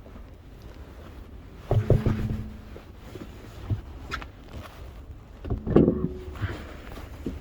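Work noises during a car tyre change: two short bursts of knocks and metallic clatter with a brief ringing tone, about two seconds in and again near six seconds, and a few single knocks between them.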